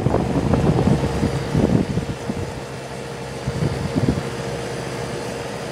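Magic Chef 25-pint dehumidifier running, its Fasco 1,550 RPM fan motor turning with a steady hum over an uneven low rumble that is louder in the first two seconds. The fan motor is failing and runs far slower than it should; the owner thinks it might be the bearings.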